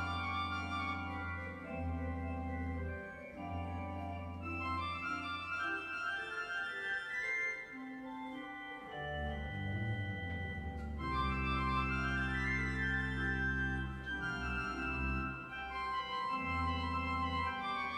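Church pipe organ playing sustained chords over deep pedal notes, with the upper voices moving in slow rising and falling lines.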